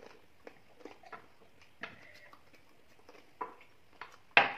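Eating sounds at a table: scattered small clicks and smacks of fingers in a metal plate and of chewing. Near the end comes one much louder, sharp knock, as a drinking glass is set down on the table.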